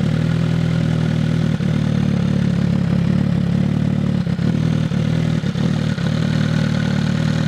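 MV Agusta F4's inline-four engine running at a steady idle through a Hurricane Evolution Oxy Carbon aftermarket exhaust, a loud, deep, even exhaust note with a few brief dips in the middle.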